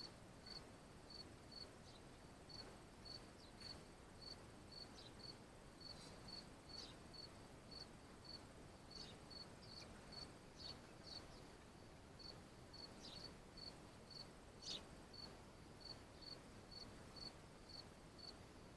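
Faint, high chirping at a very even pace, about two chirps a second, with a few soft clicks scattered between.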